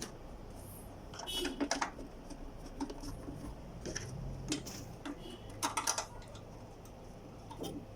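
Scattered light clicks and clatter of parts and tools being handled, in small clusters, over a low steady hum.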